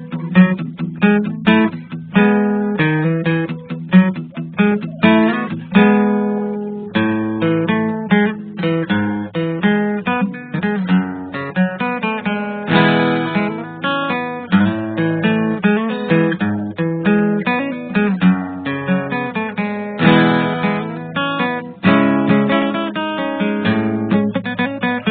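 Background music: an acoustic guitar playing, plucked and strummed notes.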